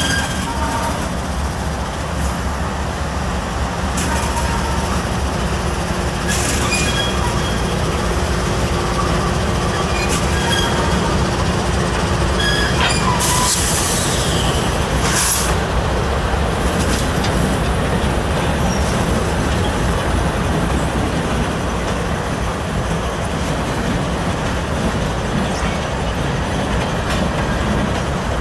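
A freight train's diesel locomotives passing close by, with the engines rumbling steadily and heavy steel wheel noise on the rails. Short high-pitched wheel squeals break through now and then in the first half.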